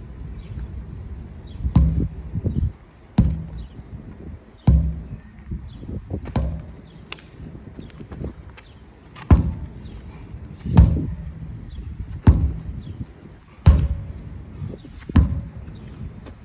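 Sledgehammer striking a large tire over and over, a heavy thud about every second and a half, with a short break near the middle.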